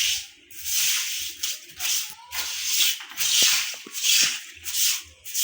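Broom sweeping water across a floor in quick repeated swishing strokes, about two a second.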